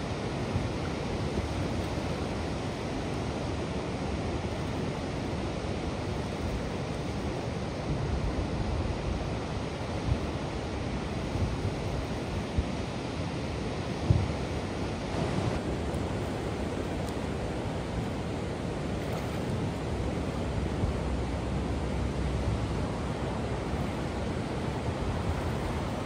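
Brown floodwater pouring over a low dam and churning in the pool below, a steady rushing roar, with a few brief low thumps about halfway through.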